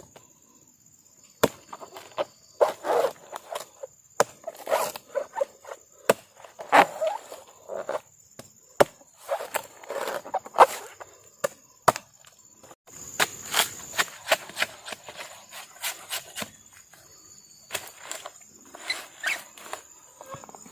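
Insects in the forest droning on one steady high note, with irregular close knocks, clicks and rustling over it, like hands working or chopping at a camp.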